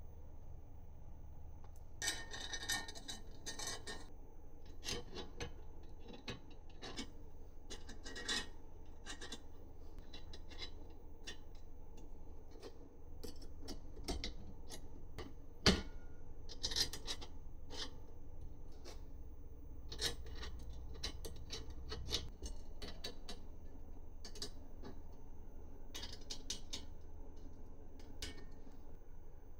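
Small handling sounds of hand assembly work: scattered light clicks and taps of small parts, with a few short rustling, rubbing bursts and one sharper click about halfway through.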